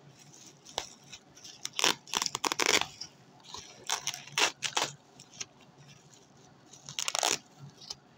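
Packaging being torn open and crumpled by hand: short bursts of tearing and crinkling, loudest about two seconds in, with a few more around four to five seconds and another near the end.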